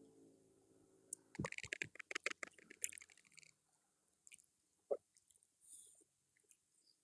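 Chewing and crunching on crispy fried chicken: a dense run of crunches from about a second in to about three and a half seconds, then a few scattered small clicks and one sharp crunch near five seconds.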